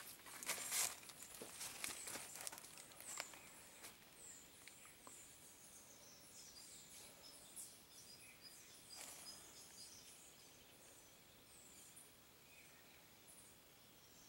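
Faint birdsong outdoors: many short, high chirps and whistled notes from small birds in the vegetation, with a few sharp crackles like dry leaves or twigs in the first few seconds.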